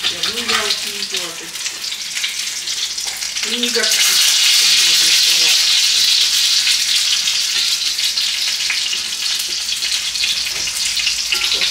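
Food sizzling in a frying pan: a steady, dense spitting hiss that grows louder about four seconds in.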